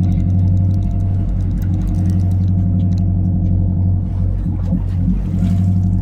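Boat engine running steadily with a constant low drone.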